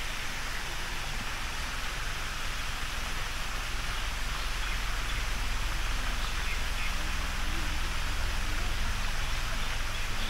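Steady outdoor hiss with a low rumble underneath, and a few faint high chirps.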